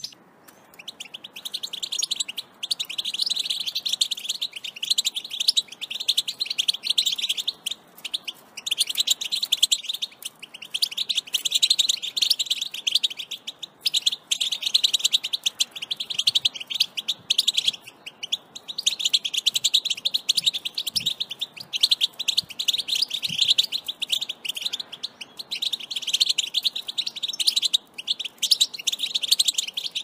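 European goldfinch singing: a long, fast, high twittering song delivered in phrases of a few seconds with short breaks between them.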